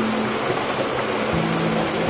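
Background music of slow, held notes over a steady rushing noise, like running water.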